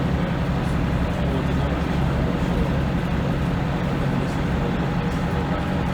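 Leyland National Mk2 bus with its Leyland L11 six-cylinder diesel engine running steadily under way, the engine note holding level with no gear change.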